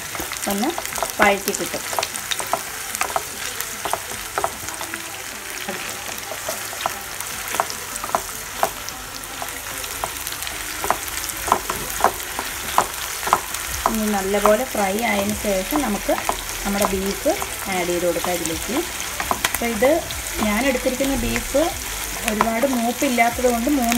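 Sliced onions and green chillies sizzling in hot oil in a kadai, stirred with a wooden spatula that scrapes and knocks against the pan in frequent sharp clicks.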